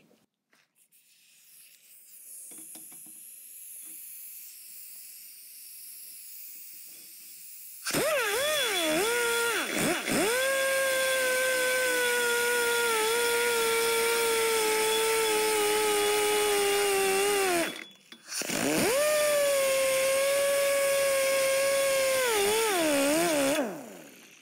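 Die grinder coping the end of a 4130 chromoly cage tube: after a few seconds of faint high whine, it runs loud with a steady high whine for about ten seconds, stops briefly, then runs again for about five seconds, its pitch sagging slightly as it bears on the metal.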